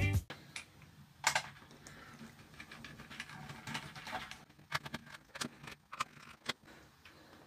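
Scattered sharp plastic clicks and taps of a computer numeric keypad being handled, about a dozen at irregular intervals.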